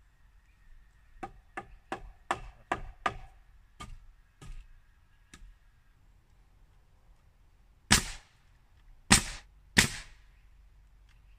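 Hammer blows driving nails into a wooden frame board: a run of about nine lighter blows starting about a second in, then three hard, loud blows near the end, about a second apart.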